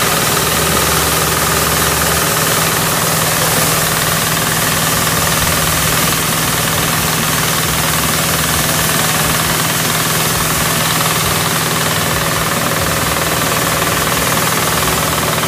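Pasquali 10.5 HP two-wheel tractor engine running steadily under load, driving a small Vidhata stationary threshing machine through a PTO shaft as wheat sheaves are fed into it. A constant low engine tone sits under an even mechanical noise from the thresher.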